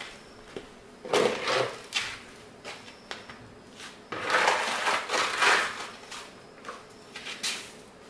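Bursts of scraping and rustling from objects being handled: one about a second in, a longer one around four to six seconds in, and a short one near the end.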